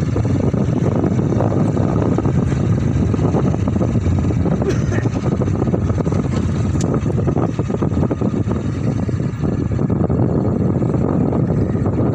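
Steady low rumble of a vehicle driving along a dirt road, engine and road noise running without a break.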